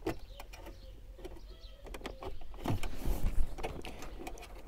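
Clicks, taps and scraping of a car stereo's metal DIN mounting sleeve and its wiring being worked into the dashboard's radio slot by hand, with a louder stretch of scraping and a falling sound about two and a half seconds in.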